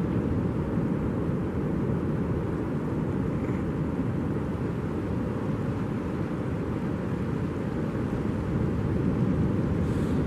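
Steady low rushing noise of beach wind and surf, with no separate events standing out.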